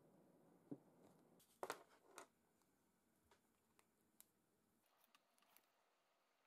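Near silence, broken by a few faint knocks and clicks from hands handling the work on a wooden workbench. The loudest cluster comes about two seconds in, followed by light scattered ticks.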